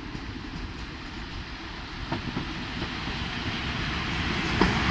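PKP Intercity passenger train hauled by an EP07 electric locomotive approaching, its running rumble growing steadily louder, with a single sharp click near the end.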